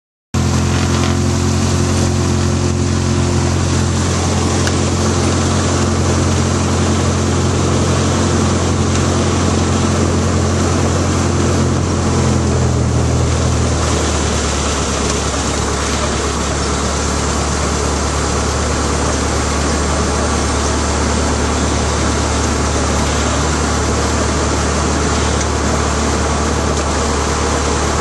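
Light aircraft's piston engine and propeller droning steadily in flight, heard inside the cabin. The note steps down slightly about 13 seconds in.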